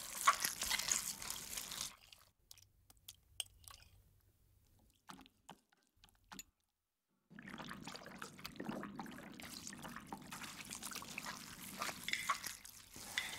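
Hands squishing and kneading minced pork in a wooden bowl, a wet squelching. About two seconds in it stops for a near-quiet pause with a few faint ticks, and the wet mixing starts again about halfway through.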